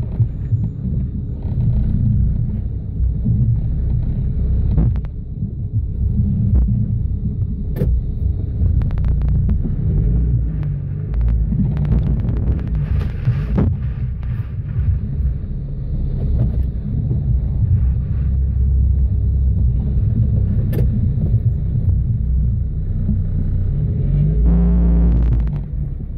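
Off-road 4x4's engine running low and steady as it crawls over rock, heard from inside the cab, with a few sharp clicks and knocks from the vehicle along the way.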